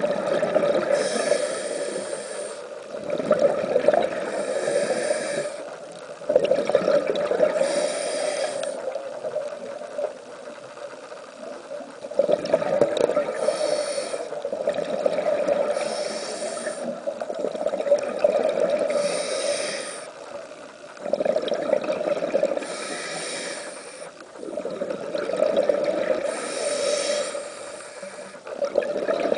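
Scuba diver breathing through a regulator, heard underwater: breaths and bubble noise come in regular bursts about every three seconds over a steady hum.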